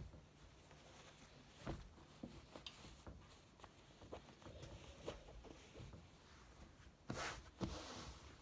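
Faint rustling and light taps of hands handling and smoothing a cotton canvas tote bag on an ironing board, with a brief louder swish of the fabric about seven seconds in.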